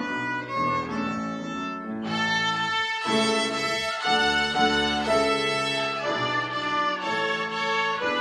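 A children's violin ensemble playing a melody together in held, bowed notes that change pitch about once a second. About two seconds in the sound grows fuller and brighter.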